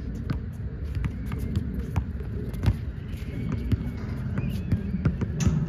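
An underinflated basketball being dribbled on a hard court, sharp bounces about three a second, over a steady low rumble, with faint voices partway through.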